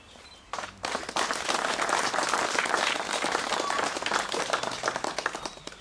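A crowd applauding. The clapping starts about half a second in and dies down near the end.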